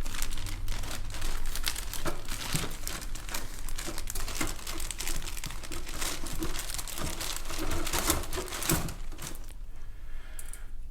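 Plastic bags crinkling and crackling as a model kit's bagged plastic parts trees are handled, dying down about nine and a half seconds in.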